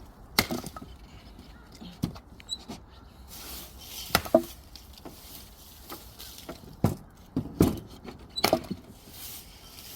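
Split firewood knocking: a series of about seven sharp, irregularly spaced wooden knocks, some in quick pairs.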